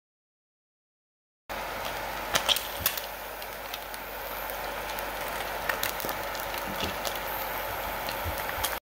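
Egg frying in oil in a stainless steel pan: a steady sizzle with scattered pops and crackles. It starts after a second and a half of silence and cuts off just before the end.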